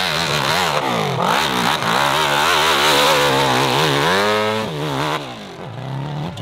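Dirt bike engine revving hard under load as it climbs a steep hill, its pitch surging up and down with the throttle. About four seconds in the revs climb sharply, then the engine note cuts off suddenly about a second later.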